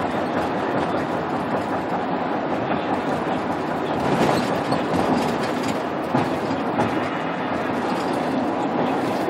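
Steady rumble and road noise of a vehicle in motion, with light knocks and rattles and a slight swell about halfway through.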